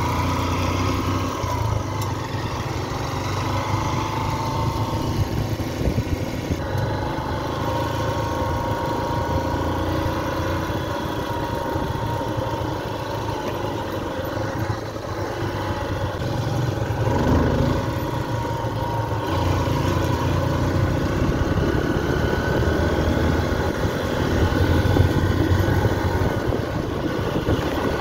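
Motorcycle engine running steadily while riding along a dirt road, its pitch rising and falling a little with the throttle.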